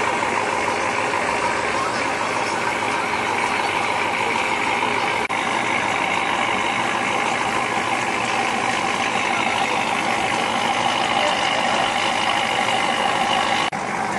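Steady loud noise of vehicles running, with two brief dropouts about five seconds in and near the end.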